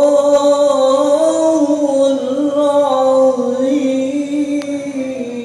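A man's voice chanting in the melodic Quran-recitation (qira'ah) style through a microphone, holding long notes that waver and slide slowly between pitches.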